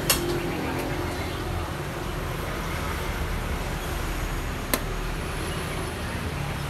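Steady street traffic, with two sharp clacks: one just after the start and one almost five seconds in, as a move is played on the xiangqi board.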